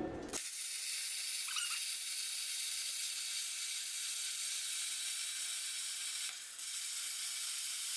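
A 50-amp plasma cutter cutting a curved coping cut through steel plate: a steady high hiss that starts about half a second in and dips briefly about six seconds in.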